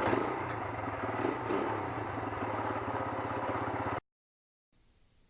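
A small engine running steadily, cut off abruptly about four seconds in, then quiet room tone.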